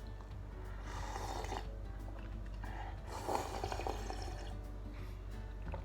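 A person drinking soup broth straight from a bowl, with two bouts of slurping and swallowing, about a second in and again about three seconds in, over quiet background music.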